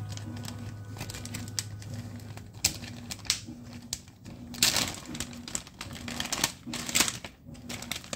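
Plastic zip-top bag being handled and worked open at its seal: irregular crinkling and sharp plastic clicks, loudest about halfway through and again near the end.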